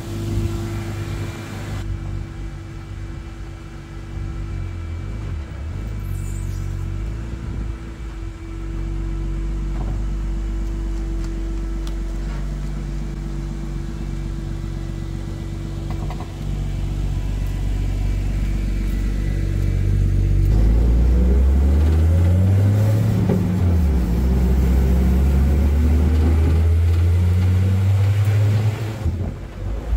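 Nissan RB25DET turbo straight-six idling steadily through a quiet exhaust. From about twenty seconds in it revs up as the car pulls away, heard from inside the cabin: the pitch climbs, drops at a gear change and climbs again.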